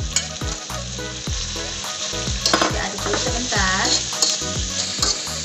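Shredded chicken, green chillies, shallots and garlic sizzling in hot oil in a wok, with a spatula stirring and tapping against the pan.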